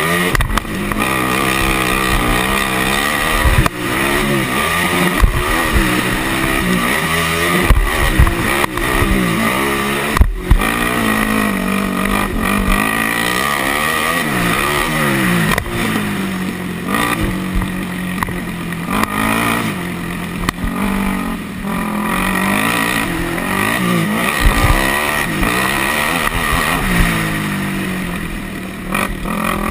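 Yamaha sport quad's single-cylinder four-stroke engine heard onboard at racing speed, revving up and dropping back again and again through shifts and corners. Wind rushes over the microphone, and there are several sharp thumps as the quad hits bumps, the loudest about ten seconds in.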